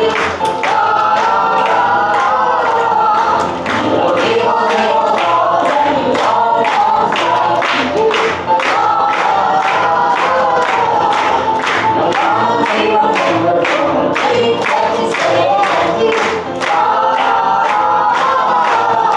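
Music with a group of voices singing together over a steady beat, about two beats a second.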